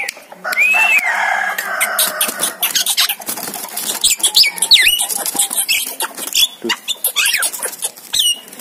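Javan myna calling: a string of short whistled notes that rise and fall, a harsh rasping stretch near the start, and many quick clicks throughout.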